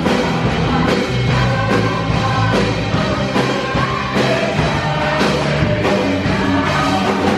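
Live worship band playing loud rock-style praise music, with drum kit, electric guitar and a singer over a steady beat.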